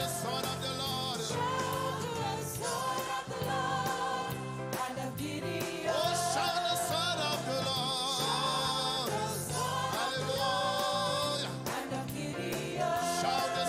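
Gospel choir singing with instrumental backing: a moving bass line and drum and cymbal hits under the voices.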